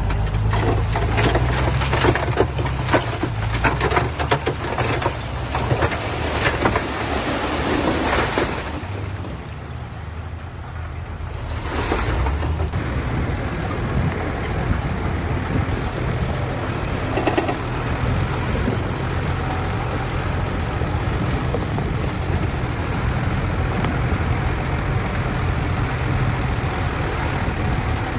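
A heavy diesel construction machine running steadily. For the first eight seconds or so it comes with a rapid clatter of knocks and scraping, then it eases off briefly before running on steadily.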